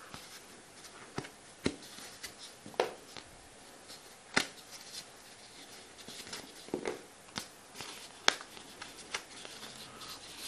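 Hard-foam jigsaw pieces being pushed and popped out of their foam card by hand: irregular small clicks, snaps and scrapes, one every second or so.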